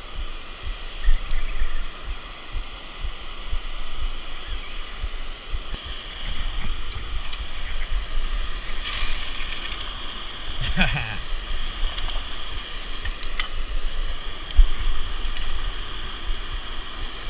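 Steady rush of water from a small creek waterfall, with a low rumble on the microphone and a few brief rustles and clicks.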